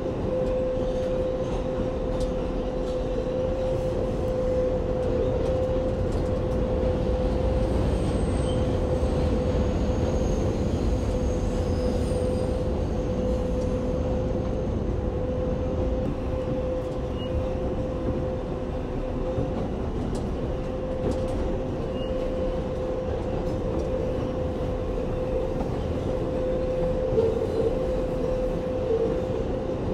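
New York City subway 7 train running: a steady rumble of wheels on the track under a constant humming tone, with a few faint high wheel squeals about a third of the way in.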